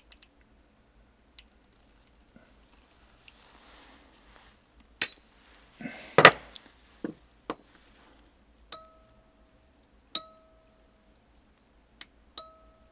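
Sharp snips and clicks of wire cutters trimming a Hohner Electra Piano reed, with a louder clatter partway through. Then the key is struck four times: each a short single-pitched electric piano note that dies away in under a second, the reed being trimmed shorter to raise its pitch toward G.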